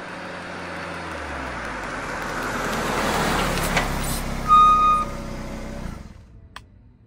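Car sound effect for a logo intro: engine and road noise swelling as it approaches, then dying away about six seconds in. A short high-pitched tone stands out about four and a half seconds in, the loudest moment.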